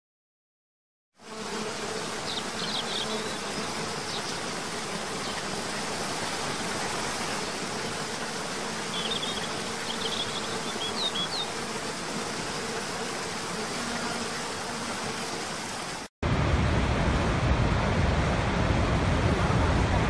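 Steady rush of a forest waterfall, starting about a second in, with insects buzzing and a few short bird chirps. About sixteen seconds in it cuts to the louder, deeper rush of a large waterfall.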